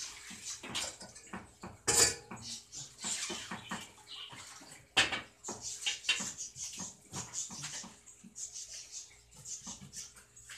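Irregular clinking and clattering of metal and dishes, with two loud clanks about two and five seconds in.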